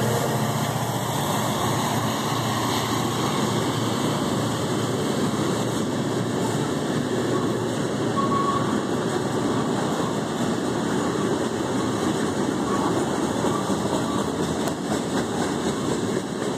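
Freight train of covered hopper cars loaded with sand rolling past close by: a steady rumble of steel wheels on rail.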